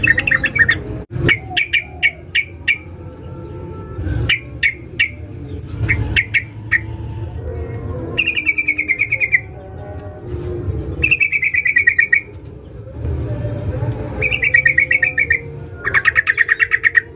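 Yellow-vented bulbul (trucukan) calling, a female's call used as a lure for males. It gives a run of short sharp chirps, then rapid chattering trills of about a second each, repeated four times.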